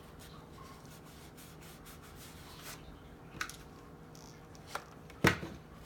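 Paper rubbing and rustling as paper rose petals are handled and pressed into shape, with three short clicks, the loudest near the end.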